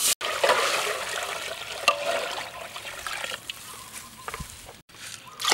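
Water poured from a plastic bucket into a large aluminium pot onto chicken fat and aromatics frying in it, a steady splashing pour that tapers off about four seconds in.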